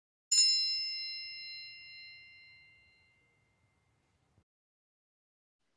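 A single bright chime sounds about a third of a second in, a bell-like ding that rings and fades away over about three seconds, as the sound of an animated logo intro.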